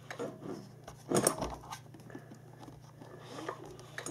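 Handling noises from the small engine's plastic air filter cover being moved and fitted against the engine: light clicks and rattles, with one louder clatter about a second in.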